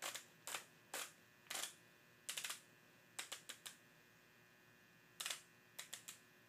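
Adjusting grip of an Armstrong click-type micrometer torque wrench clicking as it is turned to set the torque. A string of short, sharp clicks: single ones about half a second apart at first, then quick runs of three or four, with a pause of about a second in the middle.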